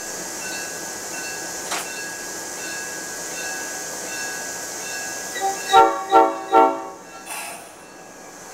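Locomotive cab noise with the bell ringing steadily, about once every 0.8 seconds, then three short horn blasts in quick succession a little past halfway.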